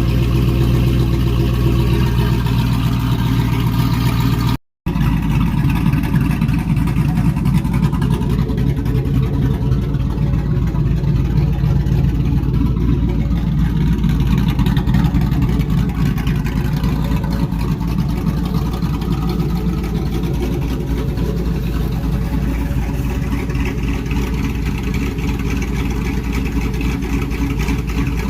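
Big-cam pickup truck engine idling with a choppy lope, running steadily. The sound cuts out completely for a moment about five seconds in.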